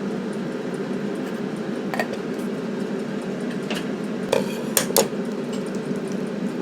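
Utensil clinking against a mixing bowl while waffle batter is mixed: a few sharp clinks about 2 s in and a cluster between about 4 and 5 s in, over a steady low hum.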